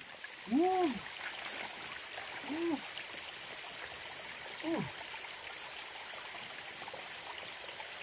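Shallow mountain stream running steadily over rocks. A man gives three short exclamations, each rising then falling in pitch, as he wades into the ice-cold water, all within the first five seconds.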